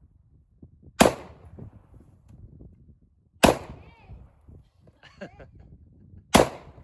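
Three rifle shots, roughly two and a half to three seconds apart, each a sharp crack with a short ringing tail; they are the last rounds before the rifle runs empty.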